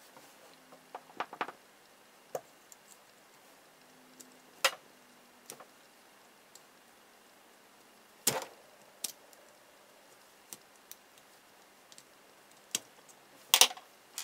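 A small metal tool picks and prises at the sealing disc of an old aluminium-can electrolytic capacitor that is being gutted. Scattered sharp clicks and scrapes are heard, with three louder knocks, the last near the end.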